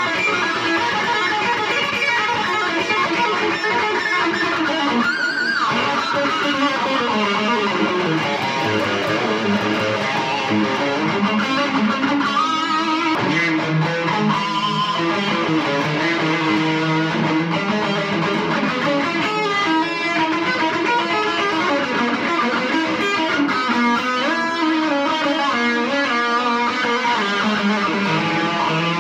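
Kramer Pacer Classic electric guitar played plugged in: continuous riffs and lead lines, with a swooping pitch glide about five seconds in.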